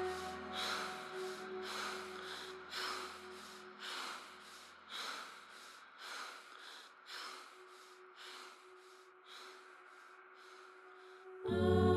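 A hiker panting hard from the effort of a steep scree climb, with quick breaths about two a second that gradually fade. A soft, sustained music chord sits underneath, and louder music comes in near the end.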